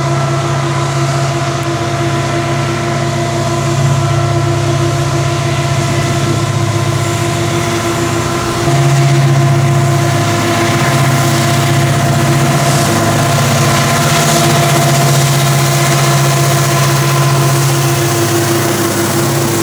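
KAI CC 205 diesel-electric locomotives hauling a loaded coal train, with their engines running and a steady whine over the drone as the train passes. The sound gets louder about eight and a half seconds in, as the locomotives come close.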